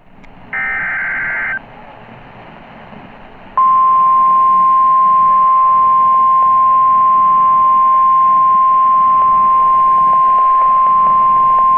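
NOAA Weather Radio emergency alert tones over radio hiss. A roughly one-second burst of warbling SAME data tones comes first, and about three seconds later the steady single-pitch 1050 Hz warning alarm tone starts and holds. Together they mark the start of a new warning broadcast.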